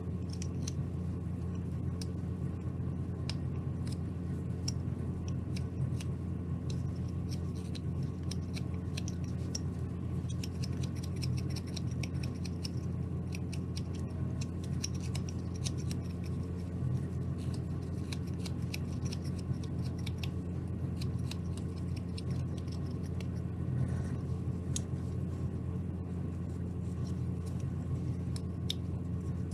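A carving knife paring small slices off a basswood ball, making quick, irregular slicing and scraping ticks. A steady low hum runs underneath.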